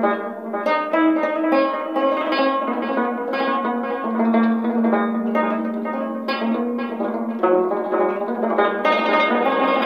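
Background music: a plucked string instrument playing a quick melody of plucked notes over a steady low drone.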